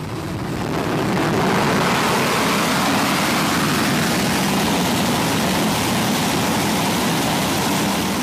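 An F-15's twin Pratt & Whitney F100 jet engines running, a loud, steady rushing noise that swells over the first second and begins to ease off near the end.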